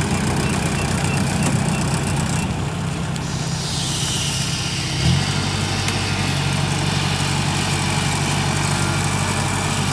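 Farm machine's engine running steadily, its note shifting about halfway through, with a hiss over the top from the middle on.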